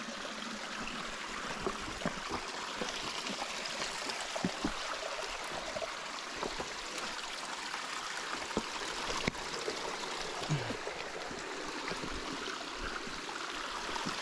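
Steady rushing of a mountain stream, with a few faint scattered knocks.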